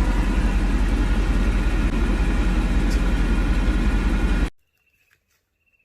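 Steady low rumble and hiss of a running engine or vehicle, cutting off abruptly about four and a half seconds in. Near silence follows, with two faint short high tones.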